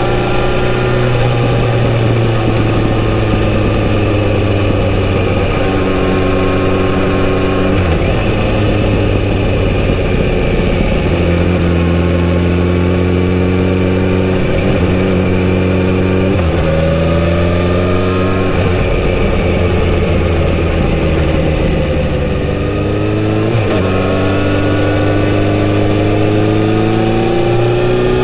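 Kawasaki Z900RS inline-four engine heard from the rider's seat while under way, the pitch climbing and dropping back at several upshifts, sagging as the throttle eases off partway through, then climbing again near the end.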